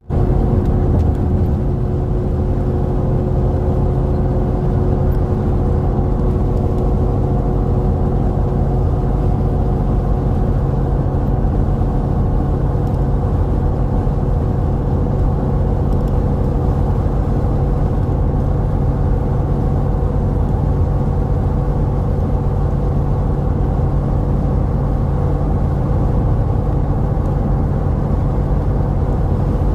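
A vehicle driving steadily: an even engine and road rumble with a steady hum, unchanging throughout.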